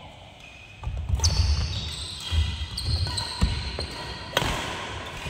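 Badminton rally: several sharp racket strikes on the shuttlecock, with players' footfalls and shoe squeaks on a wooden court floor.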